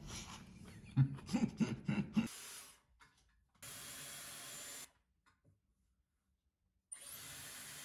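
A brief voice and mouth sounds at the start, then a Dyson Airwrap hair styler blowing air: two short bursts of steady hiss, each starting and cutting off abruptly.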